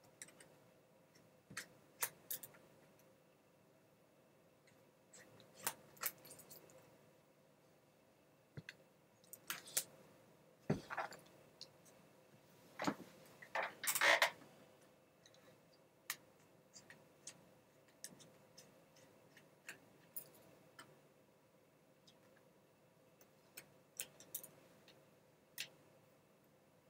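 Small Phillips screwdriver backing out the tiny screws of a laptop screen mount: faint scattered clicks and light scrapes of metal on plastic, with a few louder handling and rubbing noises about halfway through.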